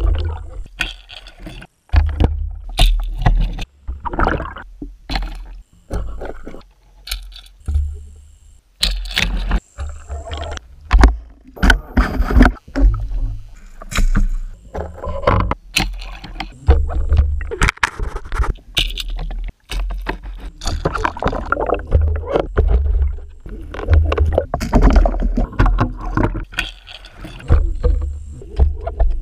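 Muffled water sloshing and splashing heard through an underwater camera housing, with a low rumble and sharp knocks, changing abruptly about once a second as short clips of pike striking lures are cut together.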